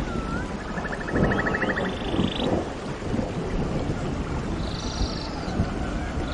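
Nature-sound ambience of steady rain with low thunder rumbling, over which an animal repeats a short swooping chirp, a fast buzzy trill and a higher rasping call, twice.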